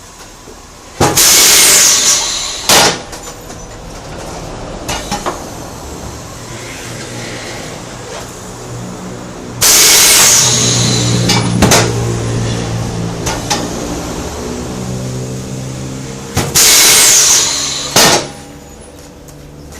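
Compressed air from tyre-shop pneumatic equipment: three loud hissing blasts, each about a second long and each followed by a sharp click. A machine hums in the middle stretch between the second and third blasts.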